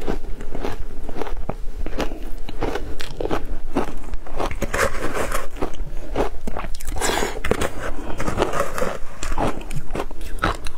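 Matcha-dusted crushed ice being bitten and chewed close to the microphone: a dense, irregular run of sharp crunches and crackles.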